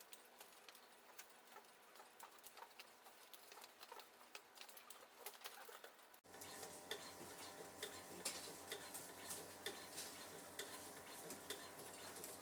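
Faint scattered small clicks and taps over quiet room tone. About six seconds in, the background jumps to a slightly louder steady hum, and the clicks come more often.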